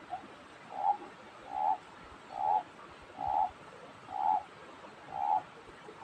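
An animal calling: six short, rough notes at one pitch, repeated about once a second.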